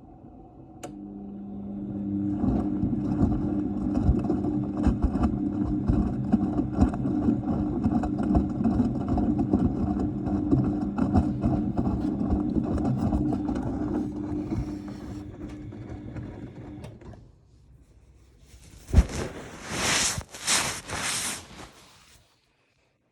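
Siemens Extraklasse XLS 140 A washing machine turning its drum during the wash: the motor starts with a hum about a second in and runs for some fifteen seconds, with the load tumbling and knocking in the drum, then stops. Near the end there is a sharp click, then a few seconds of pulsing hiss.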